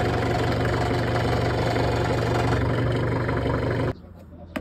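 Hyundai forklift engine idling steadily, then cutting off suddenly near the end.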